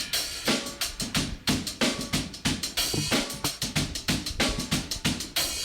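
A live band's drum kit playing a steady beat as the song gets under way.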